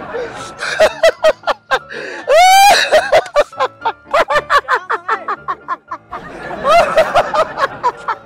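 A man laughing loudly and uncontrollably in rapid bursts of 'ha-ha' pulses, breaking into a high rising shriek of laughter about two and a half seconds in, then another strong burst near the end.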